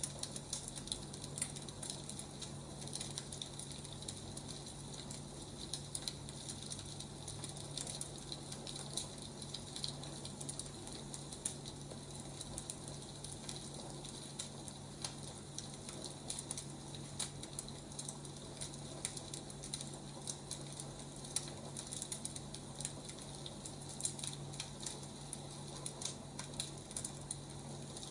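Firewood burning in a fire, crackling: irregular small pops and snaps over a steady hiss, with a low steady hum underneath.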